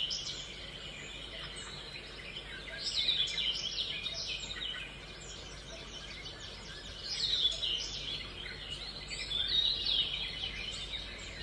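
Small birds chirping in repeated bursts of quick, high, falling chirps a few seconds apart, over a faint steady background hum.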